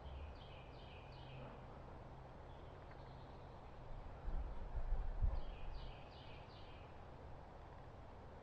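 A songbird sings two short phrases of three or four quick repeated high notes, one near the start and one about five seconds in, over faint outdoor background. Between about four and six seconds, low rumbling thumps on the microphone are the loudest sound.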